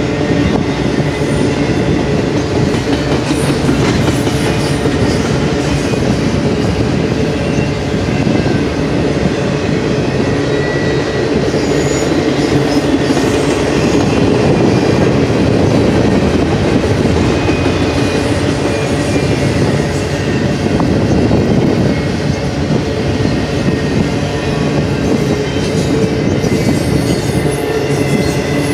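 Double-stack intermodal well cars of a freight train rolling past close by: a loud, steady rumble and rattle of steel wheels on rail, with faint high wheel squeal now and then.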